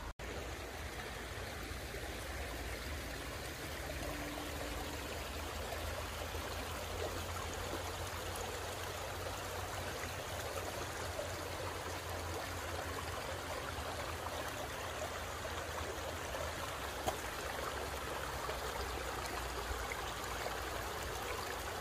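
A shallow stream running over stones and small rocks: a steady rush of water.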